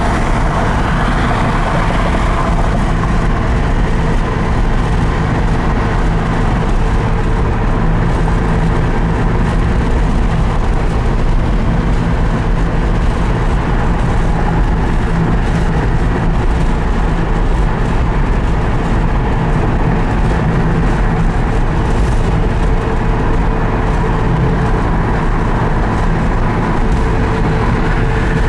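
1965 Porsche 356C's air-cooled 1600 SC flat-four running steadily at freeway cruising speed, heard from inside the cabin together with tyre and wind noise.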